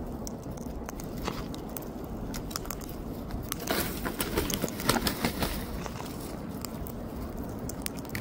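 Sulphur-crested cockatoo cracking sunflower seeds and working its beak through a bucket of seed: irregular small clicks and crunches, busiest around the middle.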